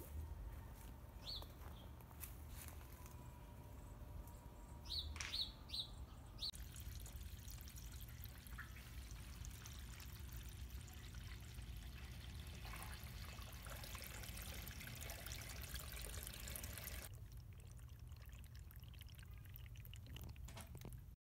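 Garden ambience: a few short bird chirps in the first six seconds, then a steady hiss, like running water, from about six to seventeen seconds in.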